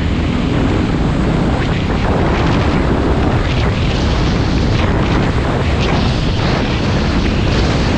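Wind buffeting the microphone of a helmet camera while riding over a dirt track: a loud, steady, rough rumble with short crunching streaks from the tyres on gravel.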